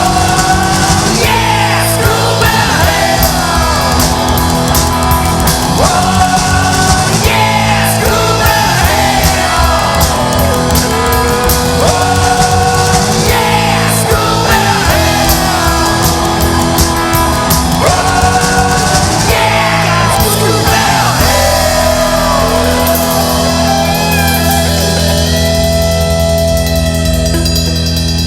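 Loud rock band recording: a lead part slides and bends in pitch over drums and bass. About 21 seconds in, the band settles on one long held chord that rings on.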